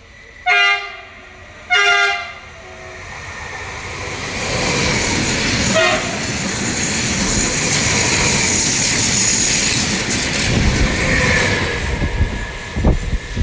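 TILO Stadler FLIRT electric multiple unit giving two short horn blasts, then running past close by. The rail and running noise builds from about four seconds in and stays loud, with a few knocks of wheels over the rails near the end.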